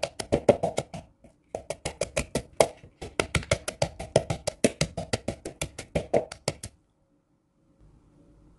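Wooden pestle pounding shallots in a plastic bowl, grinding a spice paste: quick, steady thuds about six a second, with two brief pauses, stopping about two seconds before the end.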